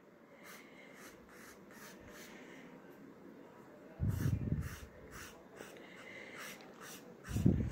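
Wooden ice cream stick dabbing and scraping colour onto paper in short strokes, about two or three a second. Two louder low puffs of breath-like noise come about four seconds in and near the end.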